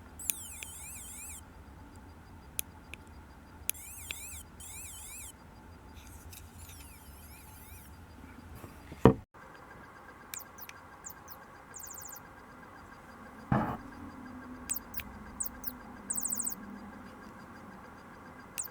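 Battery-powered electronic toy songbird from a 1990s Songbird Teresa Barbie set giving faint, high warbling chirps in short bursts, its old battery nearly spent. Two sharp knocks from handling the plastic toy break in, about 9 and 13 seconds in.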